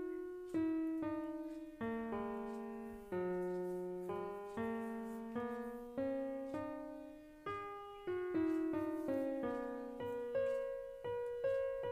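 Background piano music: single notes and chords struck one to two times a second, each ringing and fading.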